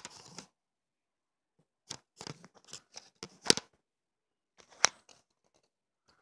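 Plastic BB pistol being handled: short clicks and clatter, with two sharp, louder snaps about three and a half seconds in and near five seconds.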